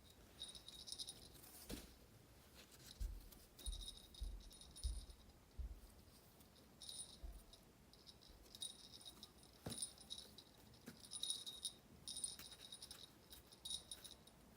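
A small metal bell jingling in a dozen or so short, irregular shakes, with ringing tones high in pitch. A few soft low thumps fall among the first jingles.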